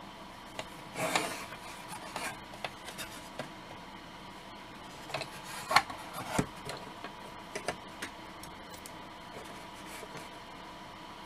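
Close handling sounds of a plastic model-kit base being turned and worked with a small brush on a cutting mat: brief scrapes, rubs and light plastic taps in irregular clusters, with the sharpest tap a little past halfway.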